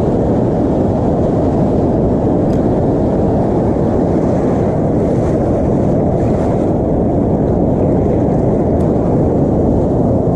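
Loud, steady wind noise on the microphone over the wash of surf around the angler's legs.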